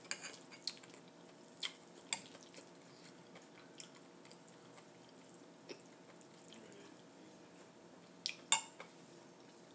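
Scattered short, sharp clicks and wet taps of eating and handling food at the table, with the loudest pair about eight and a half seconds in.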